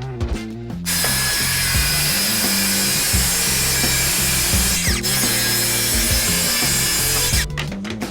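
A power grinder grinding down a part of a Leatherman MUT multi-tool, a steady harsh hiss that starts about a second in and stops near the end.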